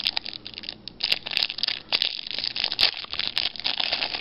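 Thin clear plastic wrapping on a trading-card pack crinkling and tearing as it is peeled off by hand: a fast, irregular crackle with a short pause about a second in.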